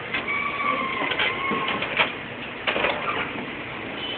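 Canon iP1980 inkjet printer mechanism working: a brief whine early on and a few sharp clicks and clacks of its plastic parts over a steady mechanical hum.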